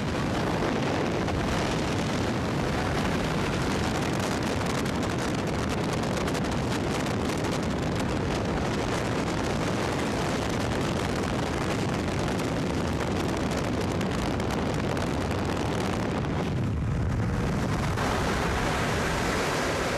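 Hurricane-simulator chamber blowing wind at Category 5 strength, about 150 to 159 mph: a steady, dense rush of air with heavy wind buffeting on the microphone. The high hiss thins briefly near the end.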